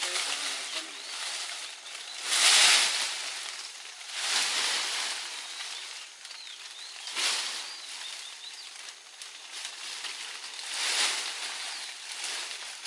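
Leafy cinnamon branches rustling and swishing in several separate bursts, the loudest about two and a half seconds in, as cut stems are pulled and dragged out through the foliage.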